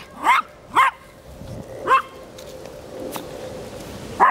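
A small dog barking in short, high-pitched yaps: two quick barks, another about two seconds in, then a pause and one more right at the end.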